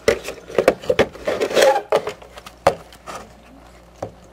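Knocking and rubbing on a wooden crib rail: a quick string of sharp knocks and scrapes over the first three seconds, then a single knock near the end.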